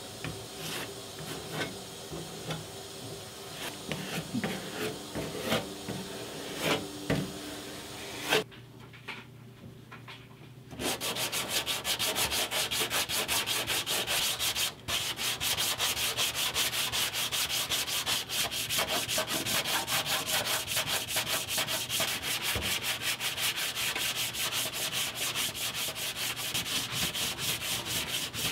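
Plastic spreader scraping body filler onto a primed steel firewall in irregular scrapes and taps. About ten seconds in, after a short quieter gap, a hand sanding block takes over, rasping over the hardened filler in rapid, steady back-and-forth strokes.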